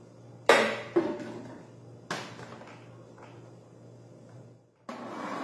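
Plastic blender lid knocking and clattering as it is fitted onto the jar, three sharp knocks in the first two seconds, the first the loudest. About five seconds in, the blender motor starts and runs steadily, beating the omelette batter.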